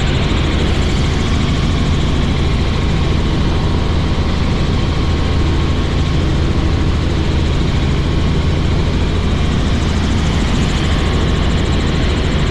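Helicopter in flight: loud, steady rotor and engine noise with a constant low drone.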